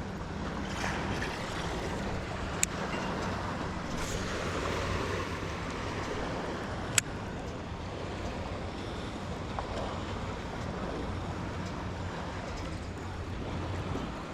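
Steady wash of lake water and wind with a low engine drone from boat traffic, broken by two sharp clicks, one a few seconds in and a louder one about halfway through.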